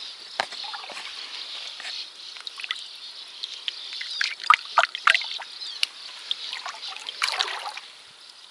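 Shallow water splashing and sloshing as a hand lets a small bream go at the water's edge, with several sharp splashes about halfway through and a longer slosh near the end. Steady chirring of crickets runs underneath.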